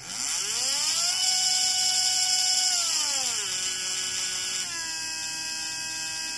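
Team Scream Racing "The One" 17.5-turn brushless RC motor spinning unloaded on a motor analyser's full test. It gives a whine that rises over the first second and holds steady, then drops in pitch about three seconds in and shifts again near five seconds before holding, with a steady high hiss over it.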